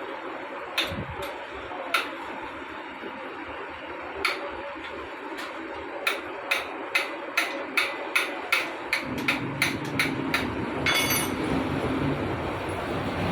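Sharp metal taps, a hammer striking motorcycle engine parts during disassembly. There are a few single strikes at first, then a quick run of about two taps a second, and a short rattle near the end.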